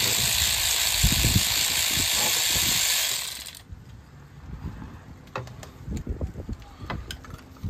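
A loud steady rushing hiss cuts off suddenly about three and a half seconds in. It is followed by scattered clicks and knocks of hand tools, such as a ratchet, working on the spark plugs of a Dodge Magnum engine.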